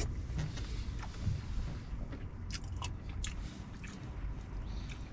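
A man eating with a small spoon from a plastic food container: chewing and mouth sounds, with light clicks and scrapes of the spoon, over a low steady hum.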